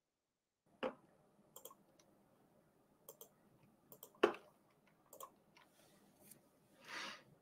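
Faint, irregular clicks of a computer mouse and keyboard, the loudest about four seconds in, with a short breathy hiss near the end.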